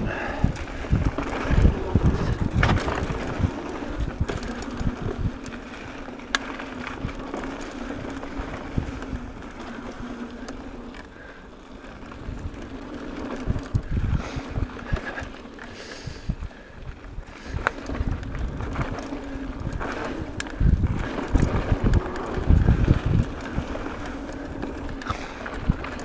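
Mountain bike rolling fast down a dirt and leaf-covered singletrack: a steady low hum from the knobby tyres, with irregular thumps and rattles as the bike hits bumps, heaviest about 20 seconds in.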